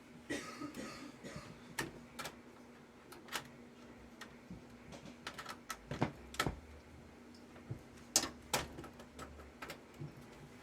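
Irregular light clicks and knocks of computer cables and plug connectors being handled, with a few louder knocks midway and near the end. A faint steady hum from the running desktop computer lies underneath.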